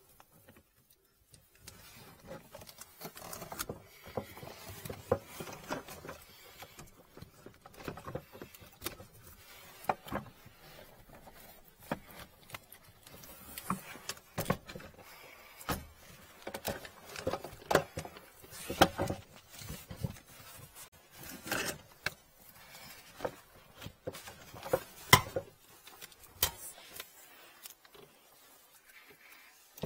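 Irregular clicks, knocks and rubbing of plastic sink drain pipework and a corrugated drain hose being handled in the cabinet under a kitchen sink. The knocks come thickest in the middle and later part.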